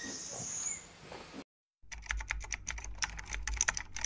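Faint background ambience, then after a brief dropout to silence, a rapid run of keyboard-typing clicks, about ten a second, from a typing sound effect.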